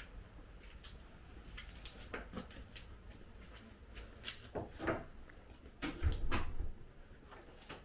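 Scattered light knocks and clicks, like things being handled and set down in a small room, with a heavier thump about six seconds in.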